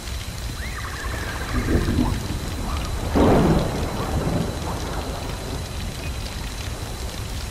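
Fantasy storm-and-fire ambience: a steady hiss of rain and crackling flame, with a bird-like phoenix cry that rises and then holds for about a second near the start. Thunder rumbles about three seconds in, the loudest sound.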